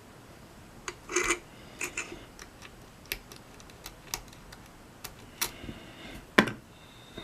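Irregular small metal clicks and short scrapes of a deep hook pick working the pins of a mortise lock cylinder held under tension with a pry bar. One sharper click comes near the end.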